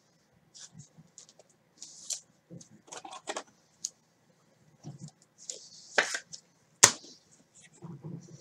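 Trading cards and plastic card sleeves being handled: scattered light rustles and clicks, with two sharper clacks about six and seven seconds in.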